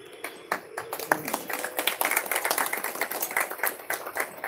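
A small group of people clapping by hand, a few scattered claps at first that build to steady applause after about a second and a half.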